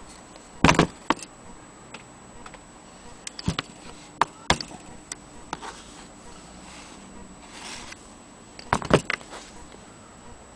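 Sharp metal knocks and clicks as a Willcox & Gibbs sewing machine is handled and turned over on a table: a loud clatter about a second in, scattered clicks in the middle, and another loud cluster near the end.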